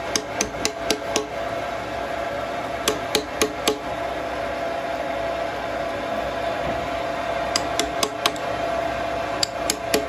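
Hammer blows on a small tool against a timber slab, in short runs of quick taps: about six in the first second, then runs of three or four around three seconds in, around eight seconds in, and near the end. A steady machine hum runs underneath.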